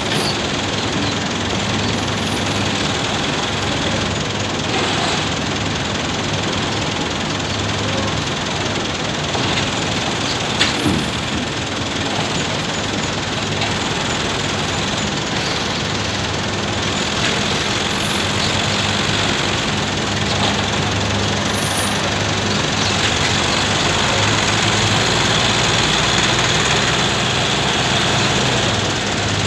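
FIAT 640 tractor's diesel engine running steadily under load as it pulls a heavily loaded sugarcane trolley at a crawl, growing a little louder in the last third as it comes closer. There are a couple of sharp knocks about ten seconds in.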